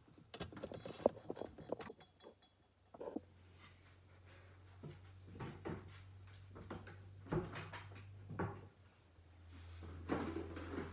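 Kitchen handling sounds: scattered clicks and knocks of doors, drawers and objects being moved and set down on a bench, thickest in the first few seconds, then a few separate thumps. A low steady hum sets in about three seconds in.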